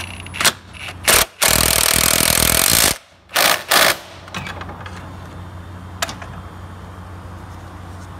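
Impact wrench tightening the 17 mm bolt on a car's side engine mount. It runs in two short spurts, then steadily for about a second and a half, then two more quick spurts as the bolt snugs down.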